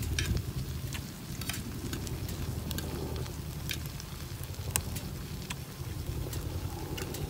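Octopus and rice cakes in red sauce sizzling in a pan over a wood fire, with scattered sharp clicks from stirring tongs and the fire, over a steady low rumble.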